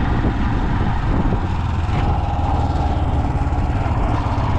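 Motorcycle engine running steadily while being ridden, a low, even pulsing throb.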